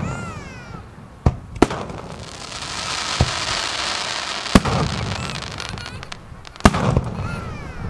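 Fireworks display: about five sharp aerial shell bangs, with a long crackling hiss from crackling stars through the middle.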